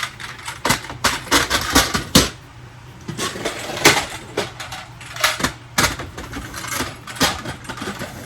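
Irregular clicking and clinking of small hard items being handled and dropped into plastic storage containers, with several louder knocks.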